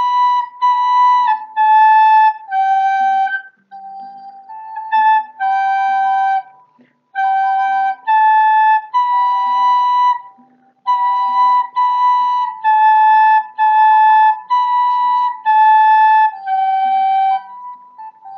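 Wooden soprano recorder playing a simple tune of short, separately tongued notes, with brief pauses between phrases. The playing stops about a second before the end.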